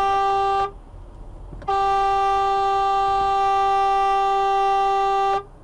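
Car horn sounding one steady note in two blasts: a short one that stops about half a second in, then a long one held for nearly four seconds.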